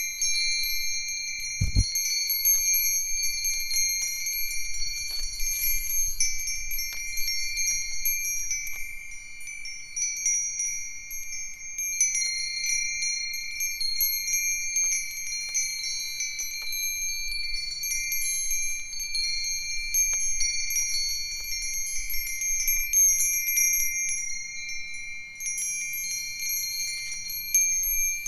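A set of five Japanese wind chimes (Myochin iron fire-chopstick chimes, Nanbu cast-iron, Nousaku and sanukite stone among them) ringing continuously in the wind, clear high tones overlapping with frequent light strikes. A brief low thump about two seconds in.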